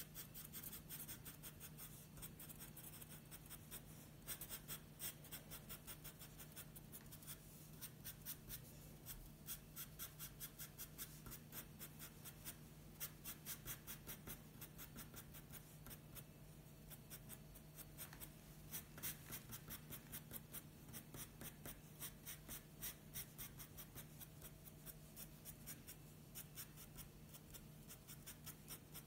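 Soft pencil scratching on paper in rapid short hatching strokes as dark fur stripes are shaded in; faint.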